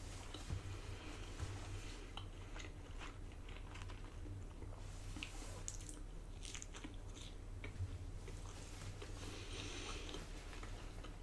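A person chewing a soft bread garlic knot close to the microphone, with small wet mouth clicks scattered throughout.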